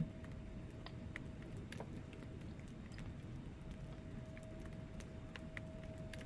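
Wood fire burning in a fireplace: a low rumble of flames with scattered sharp crackles and pops from the logs, and a faint steady tone underneath.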